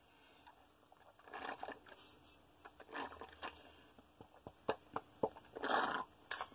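Sipping from a juice box through a straw: a few short, noisy slurping sips, with small clicks of the mouth and carton in between.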